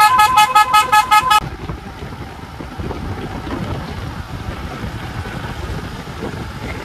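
A vehicle horn sounding a rapid string of about eight short toots, roughly six a second, for the first second and a half. Then the steady running noise of the moving SUV with wind.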